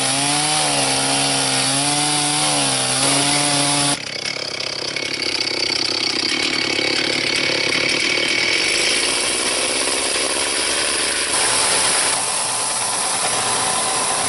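Stihl two-stroke chainsaw at high revs cutting through a short log section, its engine note sagging and recovering as the chain bites. About four seconds in, it turns into a rougher, noisier cutting sound as the chain works through the wood.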